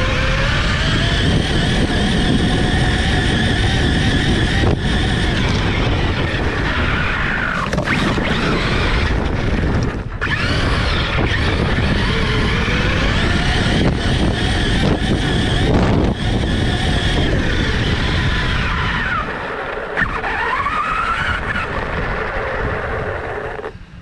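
Brushless electric motor of an Arrma Kraton RC monster truck whining, its pitch rising and falling with the throttle, over tyre and wind noise at the onboard camera. The motor drops out briefly about ten seconds in and cuts off just before the end as the truck comes to a stop.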